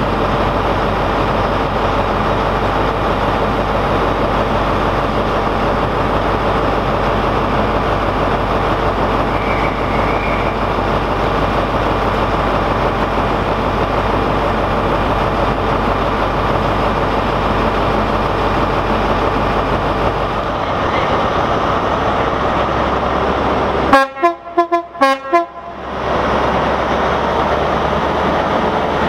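InterCity 125 power car's diesel engine idling steadily at the platform. Near the end a quick series of short horn toots sounds over about two seconds.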